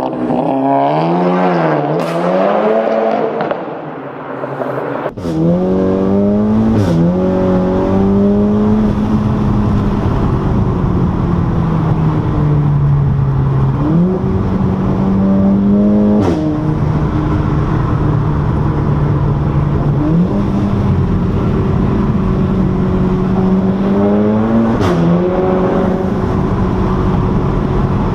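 Turbocharged performance car's exhaust under hard driving through a dual-clutch (DSG) gearbox: engine pitch rises and falls and jumps at several gear changes, with a short sharp crack, the 'DSG fart', at some of the shifts.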